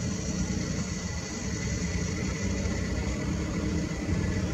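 Airbus A321neo's CFM LEAP-1A turbofans at takeoff thrust as the jet climbs away: a steady rumble with a faint high whine.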